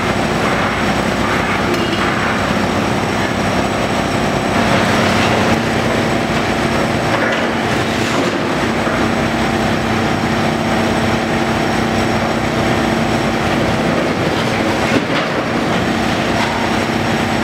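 Hitachi Zaxis tracked demolition excavator running hard, its diesel engine and hydraulics giving a steady drone, over continuous rattling and crunching as its grab tears apart the building's frame and rubble. About four and a half seconds in a steady hum rises as the hydraulics take more load.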